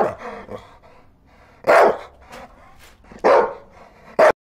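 A dog barking: single loud barks about a second and a half apart, the last one short and cut off abruptly.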